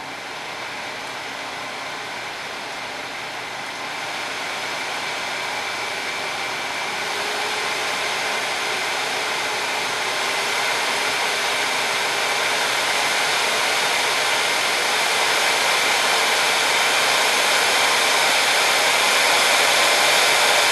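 Stock cooling fan of an ATI Radeon HD 2900 Pro graphics card blowing with a steady airy whoosh and a faint whine. It grows steadily louder as the fan spins up.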